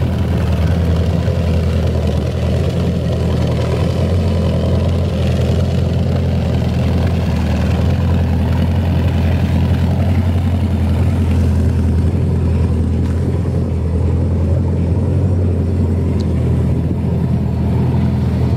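The 2001 Moomba Outback ski boat's inboard engine idling steadily and smoothly, warmed up after about 30 minutes of running.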